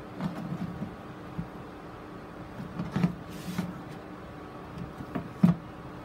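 Black plastic grid mounting board with a moss-balled staghorn fern being handled and turned over on a plastic box: a series of light knocks and clatters, with a brief rustle in the middle and the loudest knock as it is set down near the end.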